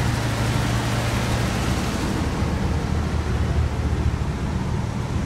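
Diesel engines of a Windhoff track-cleaning multi-purpose vehicle (MPV) running while it stands at the platform: a steady low hum under a hiss, with the hiss fading about two seconds in.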